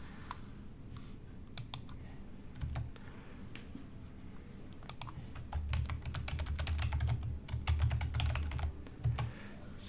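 Typing on a computer keyboard: a few scattered keystrokes, then a fast continuous run of typing from about halfway through.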